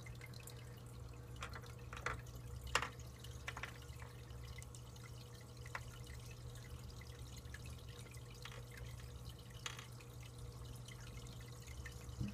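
Saltwater aquarium's circulating water dripping and trickling over a steady low hum of its running equipment, with a few short clicks scattered through, the clearest about two to three seconds in.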